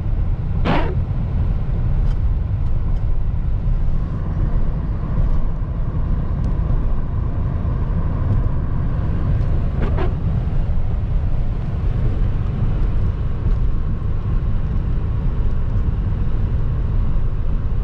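Car driving at road speed, with a steady low rumble of road and engine noise heard from inside the cabin. A brief higher sound cuts through it about a second in and again about ten seconds in.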